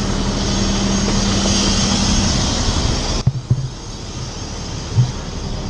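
Fire truck's engine running steadily with a constant drone and hiss. About three seconds in, it cuts off abruptly, giving way to quieter outdoor noise with a few low thumps.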